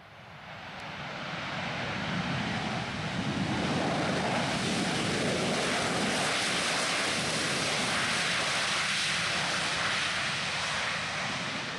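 Boeing 737-800's CFM56-7B jet engines on the landing roll as the airliner passes close by on the runway: an even rushing roar that builds over the first two seconds, holds steady, and eases slightly near the end.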